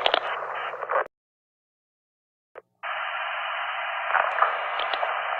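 Two-way military radio static: a thin, steady hiss that cuts off about a second in. After a click the hiss resumes near three seconds in and runs steadily.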